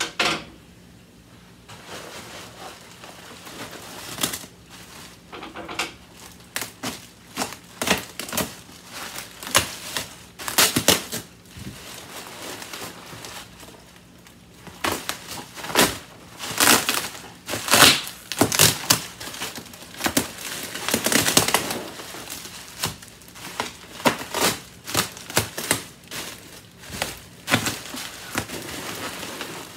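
Plastic bubble-wrap packaging and a plastic bag crinkling and crackling irregularly as they are handled and pulled off a boxed item.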